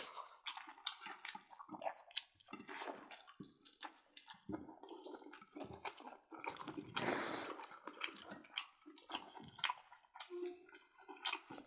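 Close-miked eating sounds: several people chewing roasted pork with wet smacks and squelches of lips and mouths, in quick irregular clicks, with one longer, louder stretch about seven seconds in.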